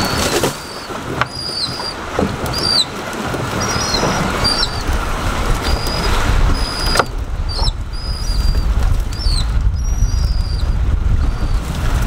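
Cast net being hauled in and emptied into a boat, with several sharp knocks as the net and its lead line hit the boat, over steady water and wind noise. Short high chirps sound again and again throughout.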